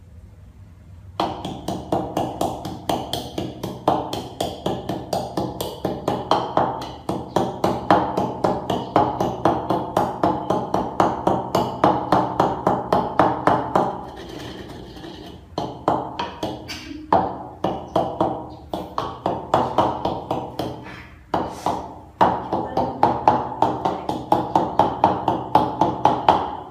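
Pestle pounding ingredients in a mortar, about three strokes a second, each knock ringing briefly, with a few short pauses.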